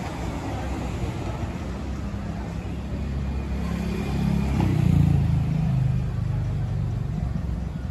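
Street traffic: a steady low engine rumble, with one motor vehicle's engine swelling up to its loudest about five seconds in as it passes close, then easing off.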